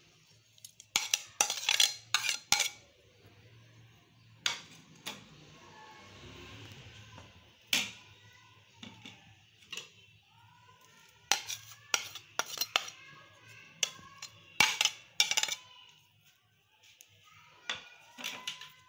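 Dishes clinking and tapping on a glass serving bowl as chopped tomatoes, green chillies and sliced onions are tipped in from a plate: sharp clicks in several short clusters.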